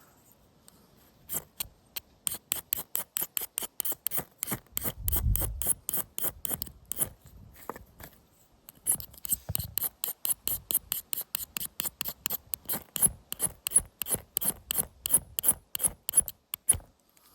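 A ferro rod struck over and over to throw sparks for a campfire: a long run of quick, sharp scrapes, about three or four a second, with a short pause about halfway through. Two dull low thumps come in among the strokes, one early on and one just after the pause.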